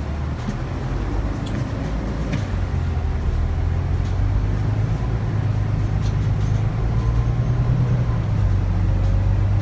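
Volvo B9TL double-decker bus's diesel engine and ZF EcoLife automatic gearbox running, heard inside the lower-deck cabin as a steady low hum. It grows louder over the first few seconds as the bus pulls away, and a faint rising whine comes in near the end.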